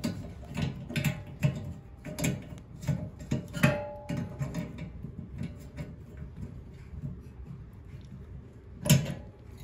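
Light metallic clicks and taps from a fitting being hand-tightened on a steel turkey-fryer burner stand, about two a second at first, one ringing briefly, then sparser, with a sharper knock near the end.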